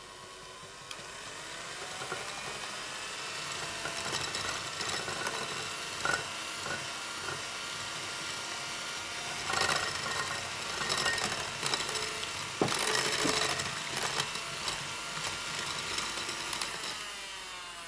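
Electric hand whisk running steadily, its twin beaters mixing thickening pancake batter in a glass bowl as milk is added gradually, with occasional sharp clicks.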